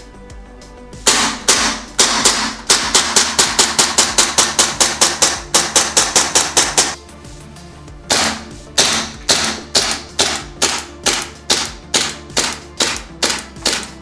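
Gas blowback airsoft gun shots: a few single shots, then a rapid string of about five shots a second lasting about four seconds, then after a short pause a steady run of shots about two a second. Background music plays underneath.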